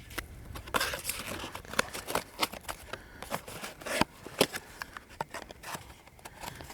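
Irregular clicks, taps and short rustles of gear and clothing being handled at close range.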